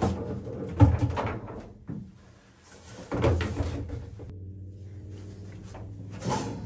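Sauna heater stones clunking and clattering as they are lifted out of the heater's stainless steel cage and set down: several separate knocks spread through the few seconds.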